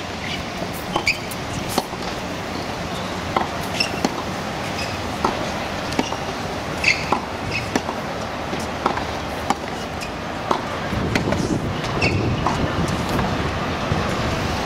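Tennis balls struck by racquets and bouncing on a hard court in a baseline rally: sharp pops about once a second over steady outdoor background noise. A low rumble swells near the end.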